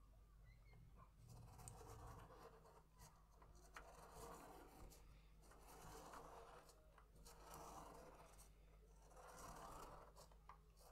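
Fineliner pen tip scratching on paper as a clear plastic Spirograph wheel is rolled around inside its toothed ring. The sound is quiet and comes in soft swells about every two seconds, with a few light plastic clicks.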